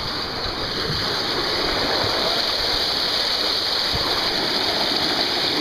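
Steady rushing of running water, getting a little louder over the first two seconds.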